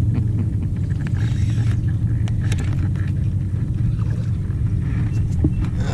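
Steady low rumble on a fishing boat with scattered sharp clicks and knocks as a hooked bass is reeled in and landed.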